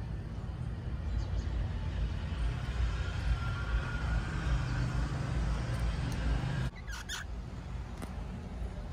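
Steady low background rumble that drops suddenly about two-thirds of the way through, followed by a few short clicks.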